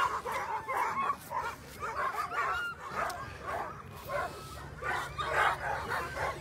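A team of Alaskan husky sled dogs barking and yipping in harness, many short calls overlapping at once: the excited clamour of dogs waiting to be released at a race start.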